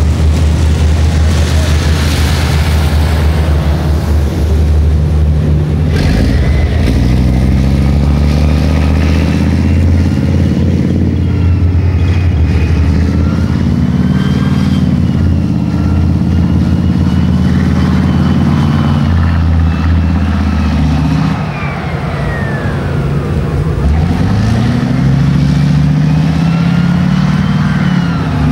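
Leopard 1 main battle tanks driving across a field: the V10 diesel engine drones and revs up and down. A high whine from the running gear rises and falls above it. The engine dips briefly about three-quarters of the way in, then revs up again.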